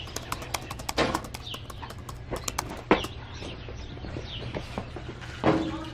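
Metal hand cart rattling and clicking as it is pulled over a concrete sidewalk, with a few louder knocks. A few short bird chirps.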